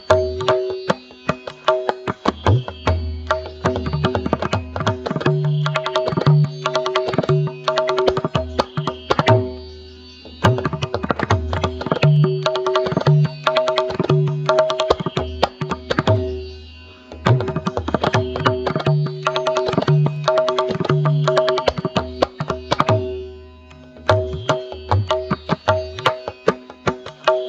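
Instrumental music: rapid percussion strokes over a held drone and a recurring deep bass line, with brief lulls in the rhythm.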